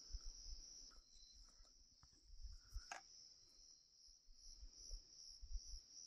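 Faint night insects trilling steadily at a high pitch, with soft low bumps of handling and one sharp click a little under three seconds in.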